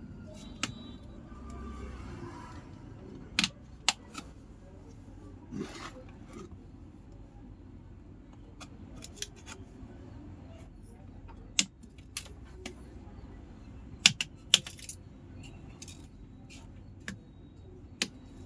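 Sharp clicks and taps of small hard objects being handled, a dozen or so at irregular intervals, with a quick cluster of the loudest about fourteen seconds in.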